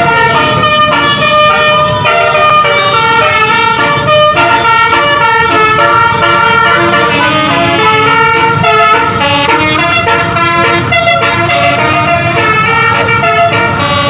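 Tour bus's multi-tone 'basuri' telolet horn playing a continuous melody, one note after another, loud and unbroken.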